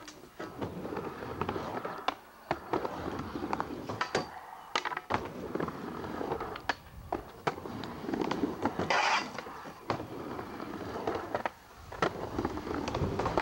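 Skateboard riding a plywood mini ramp: the wheels roll back and forth, broken by repeated sharp clacks and knocks as the board hits the ramp and its coping.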